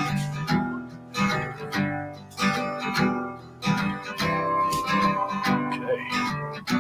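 Gentle music led by a plucked acoustic guitar, with new notes picked at an even pace.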